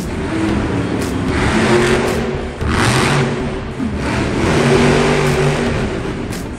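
Monster truck's supercharged V8 revving up and down as the truck drives, its pitch rising and falling several times, with two short surges of hiss about two and three seconds in.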